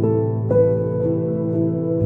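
Slow, soft background music: sustained keyboard notes changing about every half second over a steady low drone.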